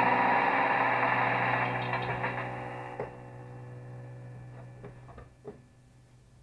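A steady mechanical hum, several fixed pitches together, fades away over the first three seconds. After it come a few light knocks and clicks of hand-held equipment being handled.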